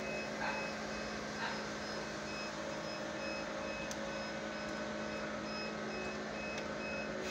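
Electric egg incubator running: a steady hum from its circulation fans, with a faint high electronic beep repeating at an even pace.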